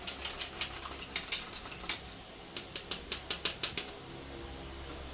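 A spoon clicking and tapping against a container as Quaker oats are measured out. The clicks come in irregular runs, with a quick run of about five a second in the middle.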